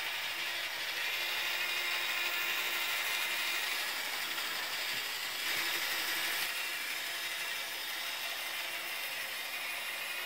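OO/HO-scale model train running on track: the locomotive's small electric motor and the wheels of the trucks and brake van make a steady whir and rattle on the rails.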